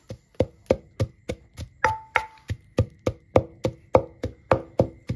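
Wooden pestle pounding dried red chillies in a clay mortar for curry paste. The strokes are steady, about three or four a second, each a sharp knock with a short ring.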